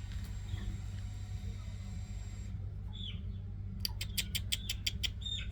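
A few short, high, falling chirps from a bird over a steady low hum, with a quick run of about seven sharp clicks about four seconds in.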